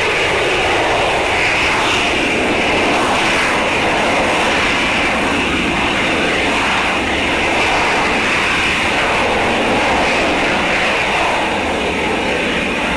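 Armadillo Aerospace Pixel vehicle's LOX/methane rocket engine firing steadily in free flight: a loud, even rushing noise with no break.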